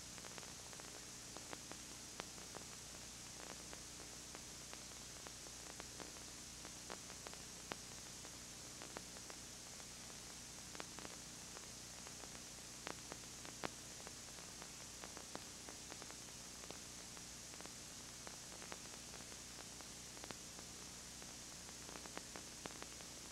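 Steady hiss and low electrical hum with scattered faint clicks and crackles: the noise of a blank audio track on a copied VHS surveillance tape.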